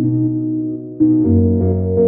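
Ambient background music of sustained chords, changing to a new chord about a second in.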